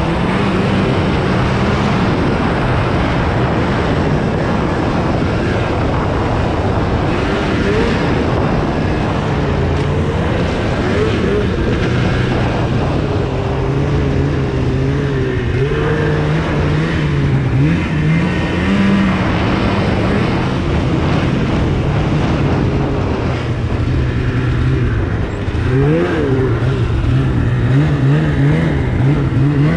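2016 Polaris RMK 800 mountain snowmobile's two-stroke twin engine, fitted with an aftermarket Bikeman exhaust can, running under way. The engine note rises and falls as the throttle is worked, with several quick climbs in pitch in the second half.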